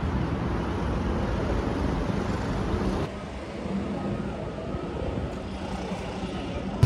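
Steady city street traffic noise, cars going by, a little quieter after about three seconds.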